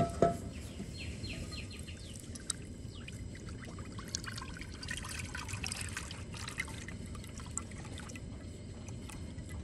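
Cooking oil poured in a steady stream into a metal frying pan, splashing and trickling as the pan fills for deep-frying. A short metallic clank with a brief ring at the very start.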